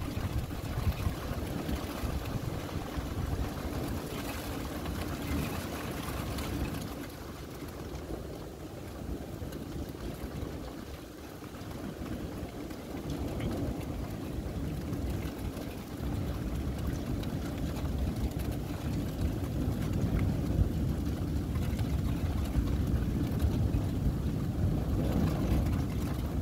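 Thunderstorm: a continuous low rumbling of thunder mixed with wind on the microphone, easing off about halfway through and building again over the second half.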